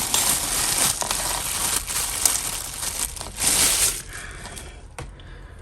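A plastic bag crinkling as it is handled and rummaged through by hand, dying down after about four seconds, with a single small click near the end.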